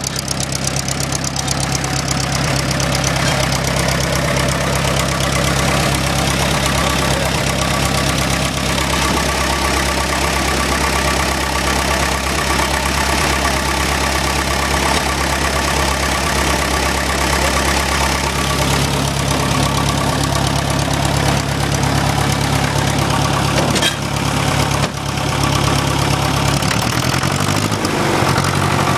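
International TD-6 crawler's diesel engine running steadily at idle after a hard cold start, its note shifting a little about two-thirds of the way through and again near the end.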